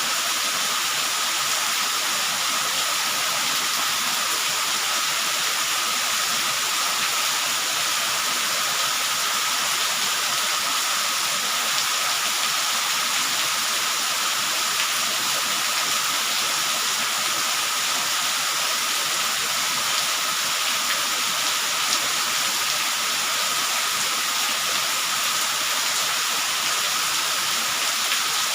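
Steady rain falling: an even hiss with scattered faint drop ticks and a thin steady tone running beneath it.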